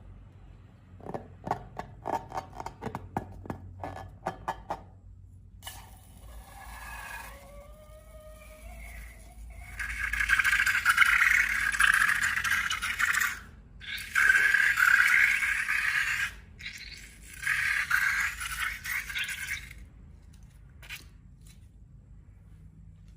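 Handling of slime-making materials: a quick run of clicks and rattles, then a few faint squeaky glides, then loud scraping in three long stretches with short breaks between them.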